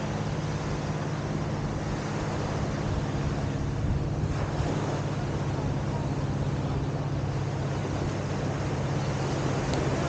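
Surf and wind buffeting the microphone as a steady wash of noise, with a steady low drone underneath.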